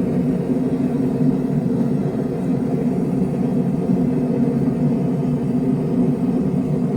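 A steady low rumble with no hammer strikes.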